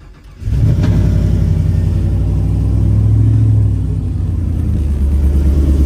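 Chevrolet Silverado's V8 catching on a cold start about half a second in, then running with a loud, steady idle that eases down a little after about four seconds.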